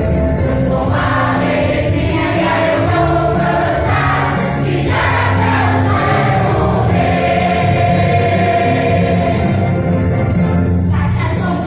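Choir singing a Christmas cantata with instrumental accompaniment: held, shifting chords over a steady bass line.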